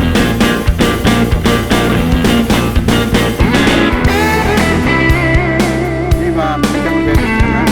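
Rock music with electric guitar: a steady drum beat at first, then bending lead guitar lines from about four seconds in.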